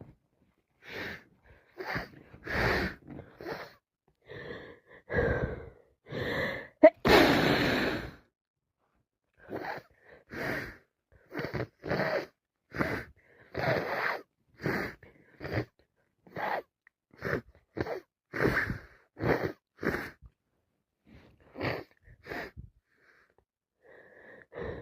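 A woman with a cold taking short, gasping, wheezy breaths, about one a second, with one loud sneeze about seven seconds in.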